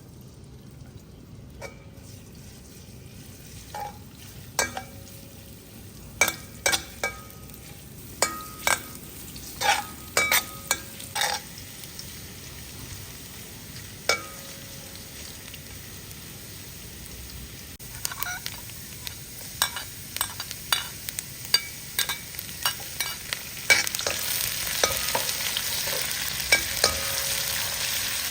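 Hot oil sizzling in a pan as food fries, with a cooking utensil knocking and scraping against the pan many times. The sizzle gets louder near the end.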